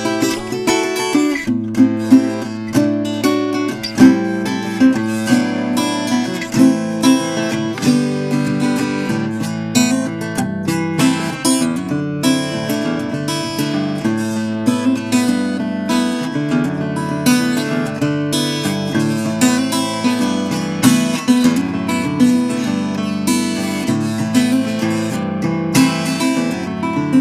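Acoustic guitar playing a continuous run of plucked and strummed notes.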